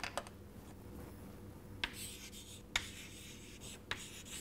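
Chalk writing on a chalkboard: scratchy strokes, with three sharp taps as the chalk strikes the board.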